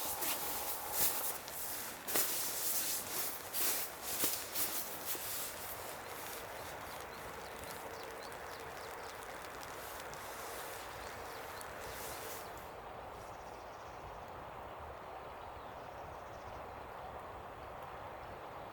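Steady rainfall hiss. For the first six seconds it carries a run of sharp taps and rustles, then settles to an even patter, a little duller in its upper range from about twelve seconds in.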